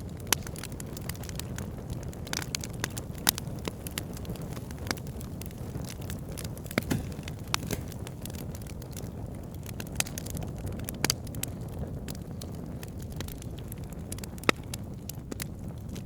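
Campfire burning with a steady low rumble and irregular sharp crackles and pops from the wood. A few pops stand out louder than the rest.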